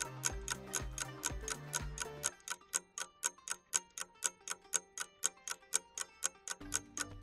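Countdown-timer ticking, about five quick, even ticks a second, over background music. The music's bass drops out about two seconds in, leaving the ticks nearly alone, and comes back near the end.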